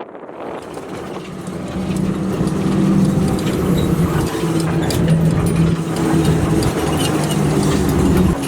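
Bus engine running with a steady hum that grows louder over the first two or three seconds, then holds steady.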